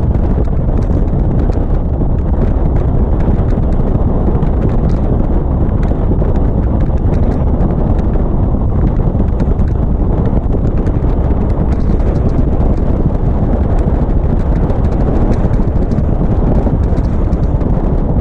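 Harley-Davidson Street Glide V-twin engine running on the move, mixed with steady wind noise on the microphone.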